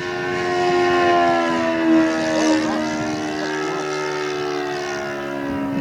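RC model aeroplane's engine and propeller running in flight, a deep, steady drone whose pitch rises a little about a second in and then slowly falls as the plane passes.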